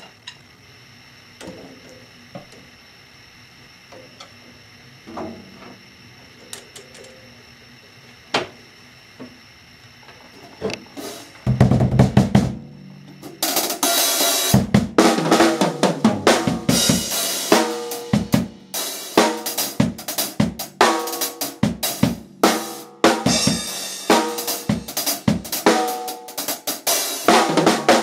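A few faint scattered taps and clicks, then about twelve seconds in a low boom, and from about thirteen seconds a drum kit played loudly with rapid, dense hits on drums and cymbals.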